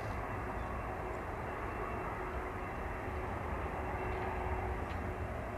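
Boeing 747-400's four turbofan engines running on the ground: a steady low rumble with a faint steady whine.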